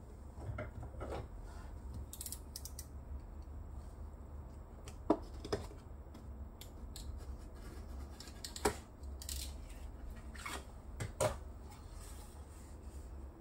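Cardboard carton being handled and opened by hand: scattered taps, rubs and a handful of sharp clicks of cardboard, over a low steady hum.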